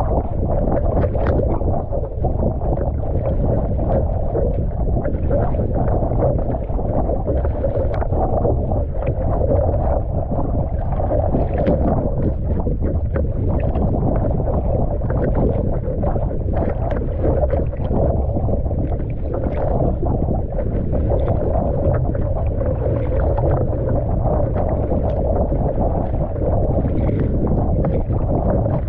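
Surfski out on a choppy, wind-driven sea: steady wind rumble on the deck-mounted camera's microphone, with water rushing and slapping along the hull and the paddle blades splashing in with each stroke, many small splashes throughout.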